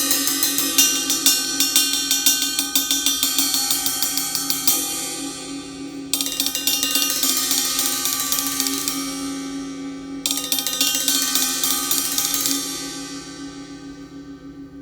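Zildjian Planet Z 20-inch ride cymbal played with a stick in three runs of quick strokes, its bright wash building up and then dying away between runs; after the last run, about two seconds before the end, it rings out and fades.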